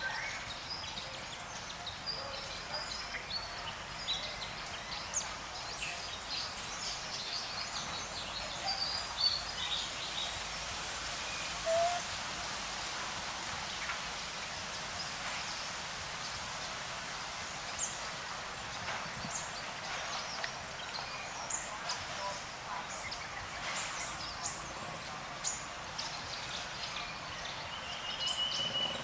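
Forest ambience: many short bird chirps and calls scattered over a steady hiss, with one brief louder call about twelve seconds in.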